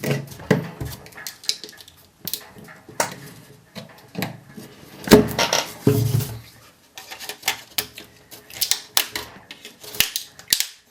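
Plastic laptop battery pack case being pried open with a small hand tool: irregular clicks, taps and scraping of tool on plastic, with the loudest knocks about five to six seconds in.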